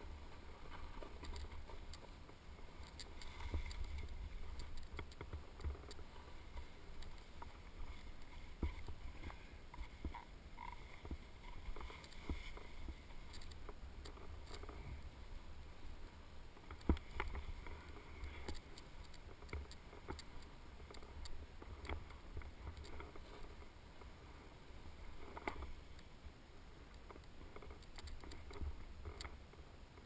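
Snowboard sliding and scraping over snow, with scattered sharp knocks, the strongest about 17 and 25 seconds in, and a steady low rumble of air buffeting the camera's microphone.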